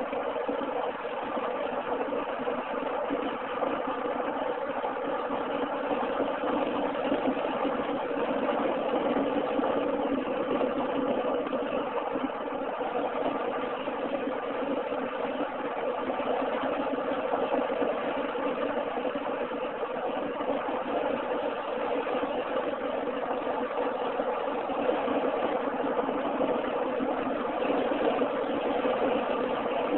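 Steady engine and tyre drone of a car cruising at highway speed, heard from inside the cabin.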